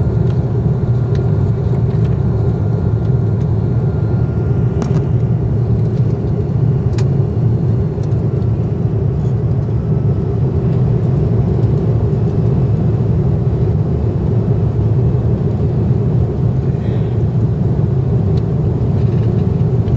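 Airbus A330-200 airliner heard from inside the cabin during take-off: a loud, steady rumble of engines and airflow that does not change.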